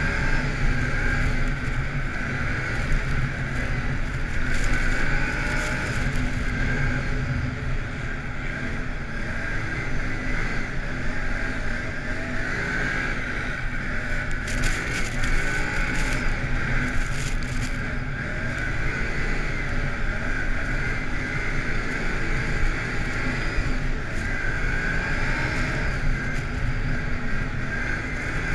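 ATV engine running at speed, its pitch rising and falling with the throttle, over a steady rushing noise.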